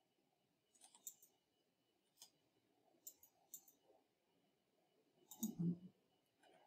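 Faint computer mouse clicks: scattered single and double clicks, with a soft low thump about five and a half seconds in.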